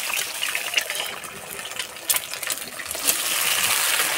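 Two eggs sizzling in hot mustard oil in a kadai: a steady hiss with rapid crackles and spits, and a few louder pops.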